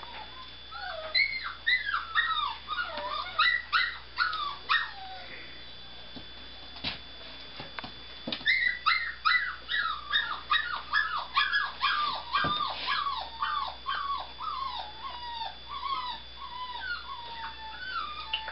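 Nova Scotia duck tolling retriever puppy whining: runs of short, high-pitched cries that slide down in pitch, about two a second. One run comes in the first few seconds, and a longer one begins about a third of the way in, its cries growing lower and shorter toward the end.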